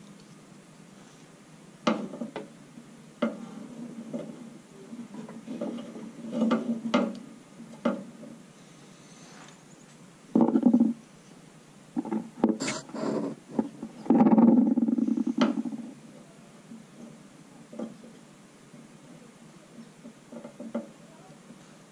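Hands working at a taillight housing, twisting stripped wires together for a splice: irregular clicks, light knocks and rustling. Louder scrapes and rustles bunch together about halfway through.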